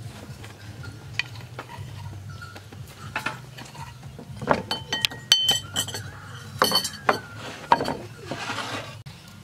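A metal spoon clinking and scraping against an orange mortar and a ceramic plate in scattered taps, with a quick run of bright, ringing clinks about five seconds in.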